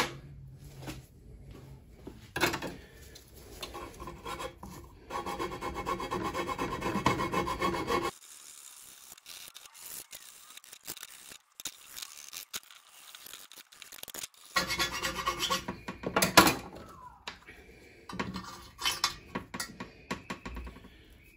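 Rubbing and scraping on an aluminium engine sump, with scattered knocks and clicks of handling, in stretches that stop and start.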